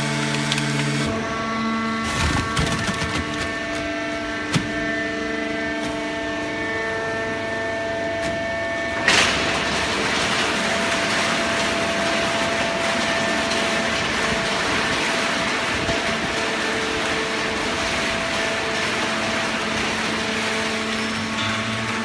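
Horizontal hydraulic baler running, a steady machine hum with several held pitches from its motor and hydraulic pump. A few knocks come early on and a sharp bang about nine seconds in, after which a steady rushing noise runs under the hum.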